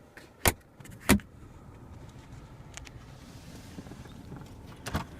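Two sharp clicks about half a second apart near the start, a few faint ticks, then more clicks near the end: the latch and lid of a car's center storage compartment being opened and shut.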